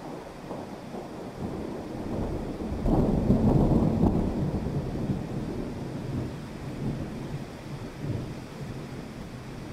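Steady rain with a rumble of thunder that swells about three seconds in and rolls away slowly.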